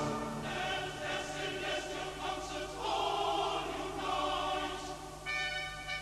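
A large choir singing sustained chords, changing chord every second or so. Near the end, bright trumpet tones come in with a regular pulse.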